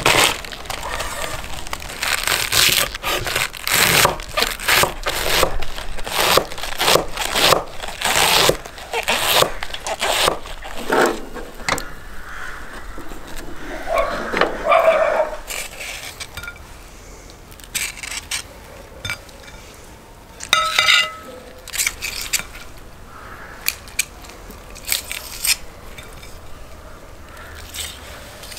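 Knife shredding a head of cabbage on a wooden cutting board: rapid crisp cuts for about the first ten seconds. After that it is quieter, with a few scattered metal scrapes and clinks.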